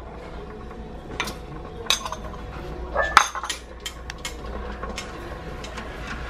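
Metal spoon clinking and tapping against a metal mesh strainer and the rim of a stainless pressure-cooker pot as palm sugar is scraped in. There are several separate clinks, with the loudest about three seconds in.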